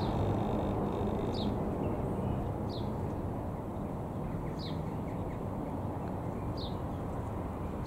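Robin R3000 light aeroplane's single piston engine droning overhead at a distance. A small bird calls over it with a short, high, falling chirp, repeated about every one and a half to two seconds.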